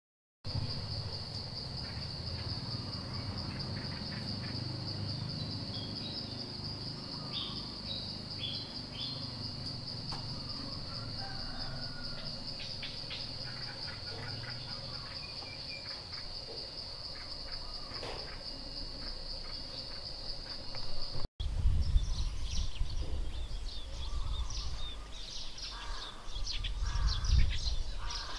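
Outdoor daytime ambience of a steady, high, continuous insect drone with scattered short bird chirps. About three-quarters of the way through the sound cuts: the drone stops and busier bird chirping takes over, over a low rumble.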